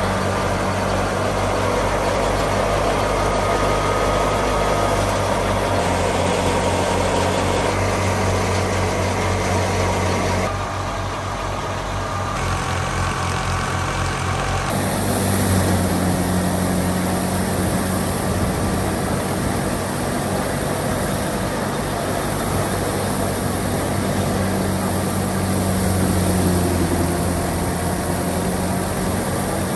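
Fiat 480 tractor's diesel engine running steadily, driving a wheat thresher. The sound shifts abruptly a few times, around 10, 12 and 15 seconds in.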